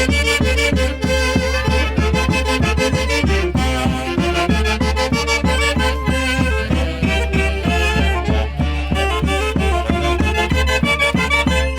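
Live Peruvian orquesta típica playing festive Santiago music: a sustained reed-and-string melody over a steady, even beat.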